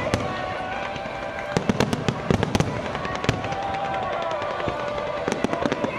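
Fireworks going off in a rapid barrage of bangs and crackles, with denser clusters about a second and a half in and again near the end.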